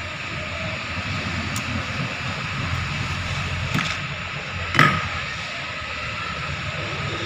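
Steady mechanical hum in the background, with a few sharp metallic clicks of hand tools and timing chain being handled on a Hyundai i10 Grand diesel engine; the loudest click comes about five seconds in.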